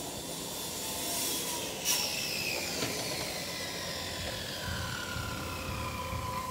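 Aircraft passing overhead, its engine whine slowly falling in pitch over several seconds over a steady background rumble. A single sharp knock comes about two seconds in.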